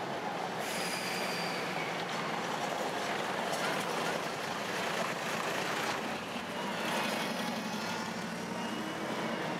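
Articulated city bus driving past over cobblestones, its engine running steadily with tyre noise, followed near the end by a car passing.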